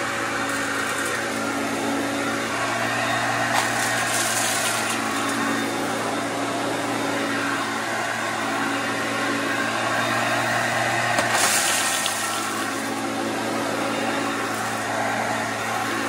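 Hoover Concept upright vacuum cleaner running steadily on carpet, a constant motor hum with two brief swells of airy hiss, about four seconds in and near twelve seconds.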